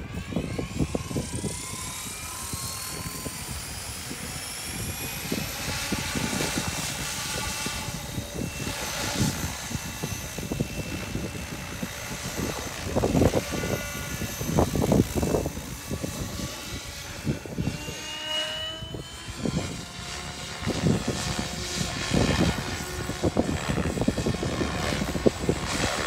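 Electric SAB Goblin RAW 700 RC helicopter spooling up: the motor and rotor whine rises in pitch over the first few seconds, then holds as it lifts off and flies, shifting in pitch as it manoeuvres. Gusts of wind buffet the microphone throughout.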